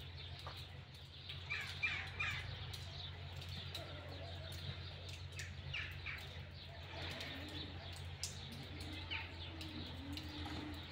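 Birds chirping: a few short high calls about two seconds in, again around six seconds and near nine seconds, over a steady low hum.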